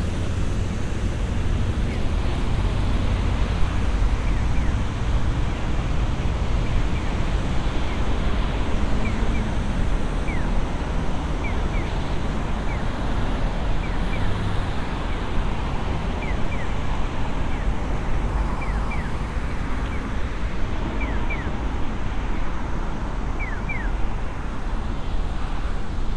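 Steady city street ambience: a continuous low rumble of traffic with wind noise. From about a third of the way in come short high chirps, often in quick pairs.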